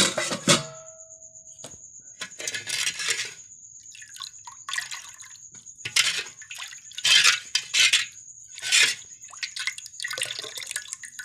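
A steel pot lid clanks and rings briefly. Then a steel ladle is stirred and scooped through thin dal in a steel pot, sloshing liquid and scraping against the metal in about eight irregular bursts.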